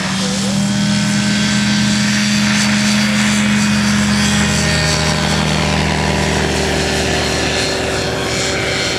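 Two-stroke Rotax 532 engine of a MiFyter biplane running at full power with the propeller buzzing on the takeoff run. Its pitch drops about five seconds in as the plane passes close by, and the sound fades slightly near the end as it climbs away.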